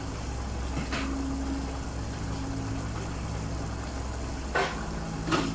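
Tomato-based stuffing sauce simmering in a pan on a gas burner: a steady low hum with a faint hiss, and a few soft pops about a second in and twice near the end.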